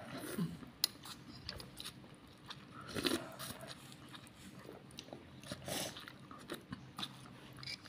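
A child chewing and biting food close to the microphone: scattered small clicks and mouth noises, with a few louder bites about three and six seconds in.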